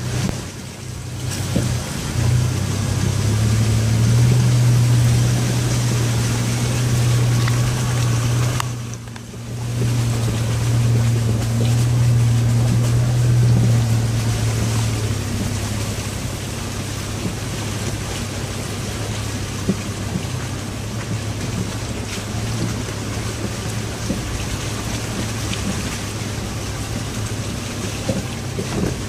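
A 4x4 SUV's engine droning steadily, heard from inside the cabin as it crawls through a shallow rocky creek, with water and tyre noise underneath. The hum is strongest in the first half, dips briefly about nine seconds in, then settles a little quieter.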